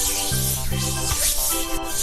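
Background music with a steady beat: sustained synth chords over a repeating bass line.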